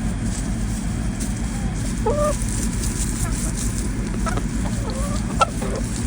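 Chickens clucking in short calls scattered through, over a steady low rushing noise, with one sharp click about five seconds in.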